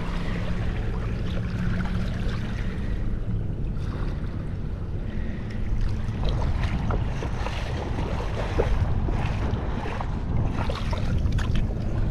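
Wind buffeting the microphone over shallow bay water, with small splashes and water movement around the wader. A low steady hum sits under it for the first few seconds.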